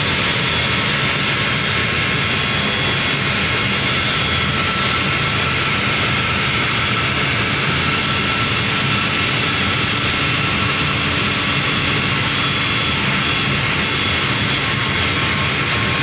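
Loud, steady rush and whine of aircraft machinery at a Boeing 777, with several high steady tones and no change in level throughout.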